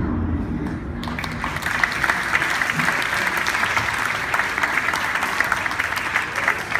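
Audience applause: the show music dies away in the first second, then a crowd claps steadily.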